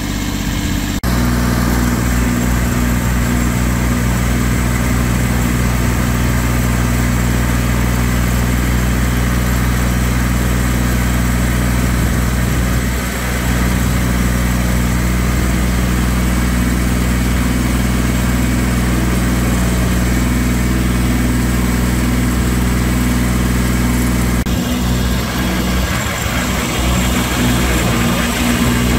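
Compact tractor engine running steadily at a constant speed. Its sound changes near the end.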